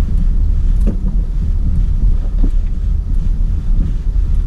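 Wind buffeting the microphone, a loud, fluctuating low rumble mixed with the sound of the BMW X5 moving on the dirt course. There are a couple of faint knocks, about one second and two and a half seconds in.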